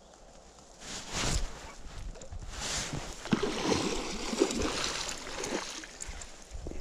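A hooked pike thrashing at the surface of a small river: loud splashes about a second in and again near three seconds, then several seconds of water churning as the fish fights on the line.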